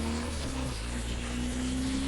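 Wind rushing over a Sedici Sistema II modular motorcycle helmet at highway speed, picked up by a microphone at the rider's ear inside the helmet, over the steady drone of a BMW R 1250 GS boxer-twin engine whose note creeps up slightly.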